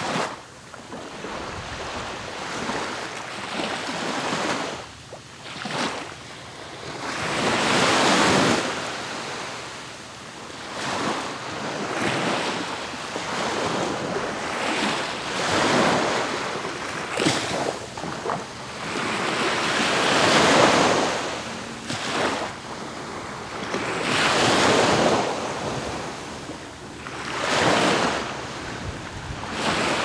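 East Sea surf breaking on the beach and washing back. The noise swells and fades as each wave comes in, every three to five seconds.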